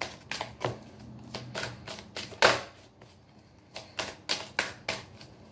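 Tarot deck shuffled by hand: quick, irregular clicks and slaps of cards, about three a second, with a louder slap about two and a half seconds in and a brief pause after it.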